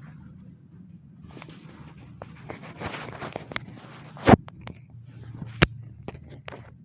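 Rustling and shuffling of clothing and a treatment table as a patient is positioned lying on his side. Two sharp knocks come a little over a second apart past the middle; the first is the loudest.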